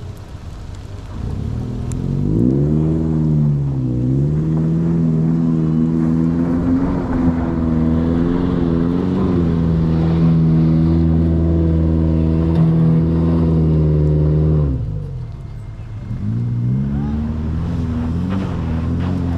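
Four-wheel-drive engine revving hard under load as it climbs a slippery clay and mud slope. The engine note rises, dips briefly, then holds steady high revs for about ten seconds before cutting off abruptly. After a short gap another engine note climbs.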